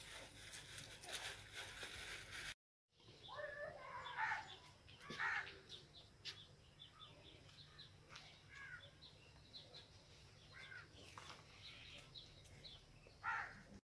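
Faint crows cawing now and then, with other birds chirping. A crackly rustling noise runs for the first couple of seconds and cuts off abruptly.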